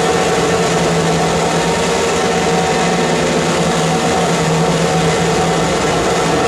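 Harsh noise wall from live noise electronics: a loud, dense, unchanging wash of distorted noise across the whole range, with a few steady humming tones held inside it.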